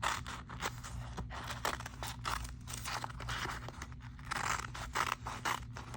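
Scissors cutting through two stacked sheets of paper: a run of irregular crunchy snips with the rustle of paper between them.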